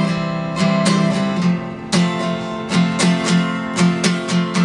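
Acoustic guitar strummed in a steady rhythm over ringing chords, in an instrumental gap between sung lines of an unplugged folk-rock song.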